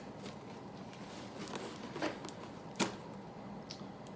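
Cardboard shipping box being handled and cut open with a knife: faint rustling with a few sharp scrapes, the loudest about two seconds in and again near three seconds.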